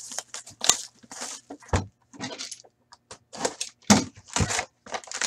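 Plastic shrink-wrap crinkling and tearing as a hockey card box is unwrapped by hand, with a few dull thumps of the cardboard box against the table.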